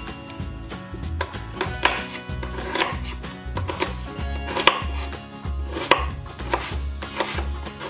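Chef's knife cutting through a peeled onion onto a wooden cutting board: a series of crisp cuts, each ending in a knock of the blade on the board, about a second apart.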